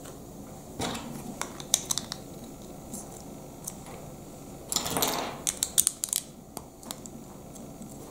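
Plastic Lego bricks clicking and snapping together as pieces are pressed onto a small chassis, in two clusters of sharp clicks about a second in and around five seconds in, the second opening with a short scrape of plastic handling.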